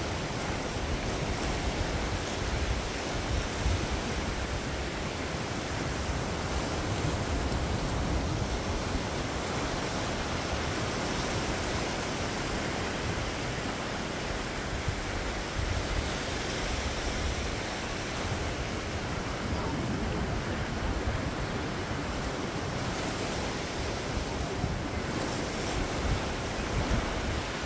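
Ocean surf washing steadily onto the beach, with wind blowing across the microphone.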